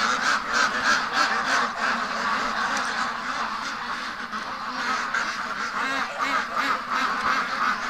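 Large flock of domestic ducks, mostly Pekins, quacking all at once with many overlapping calls. The calls thin out a little partway through and build again near the end.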